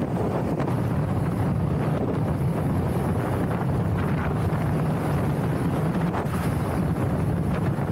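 Steady wind rumble on the microphone of a camera riding an electric scooter at about 70 to 77 km/h.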